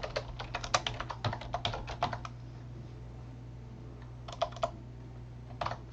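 Typing on a computer keyboard: a quick run of keystrokes for about two seconds, then a pause and a few more key clicks near the end, over a steady low electrical hum.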